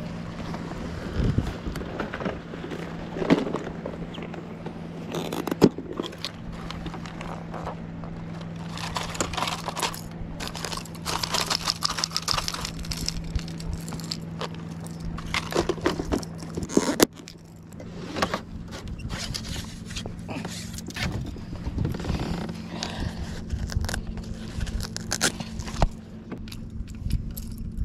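Hard plastic lures clattering, scraping and jangling as hands rummage through a clear plastic tackle box and pick out a crankbait, over a steady low motor hum that steps up slightly in pitch about two-thirds of the way through.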